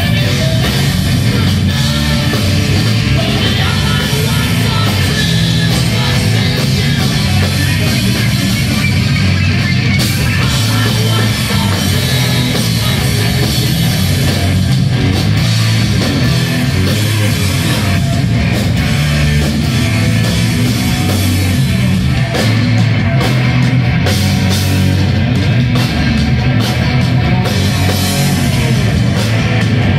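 Live heavy metal band playing loud and without a break: distorted electric guitar and a drum kit, with a singer on vocals.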